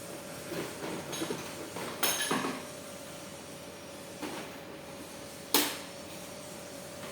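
Clicks and knocks from ATM cash cassettes and the machine's cassette compartment being handled, with a few light clatters in the first couple of seconds and one sharp knock about five and a half seconds in, over a steady faint hum.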